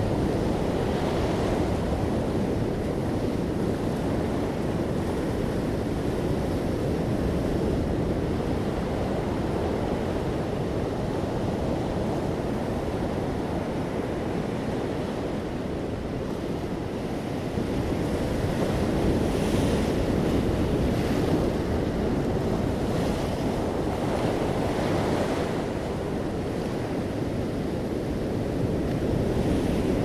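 Ocean surf breaking and washing up a sandy, pebbly beach: a steady low rumble of waves, with the hiss of foam swelling a few times as waves run up the shore and draw back.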